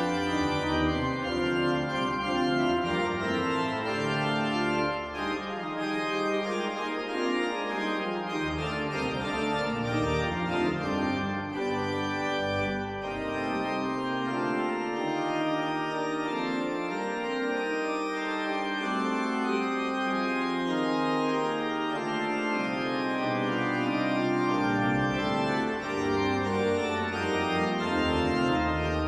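Pipe organ playing a fanfare in full sustained chords on the manuals, over deep pedal bass notes that drop out twice and come back in.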